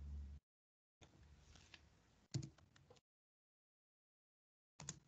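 Faint computer keyboard typing: a few scattered key clicks, with stretches of dead silence between them.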